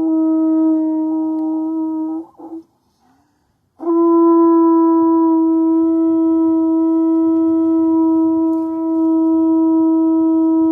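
3D-printed horn blown in long, steady notes on one pitch. The note breaks off a little after two seconds, and after a pause of about a second and a half a second long note on the same pitch is held through the rest.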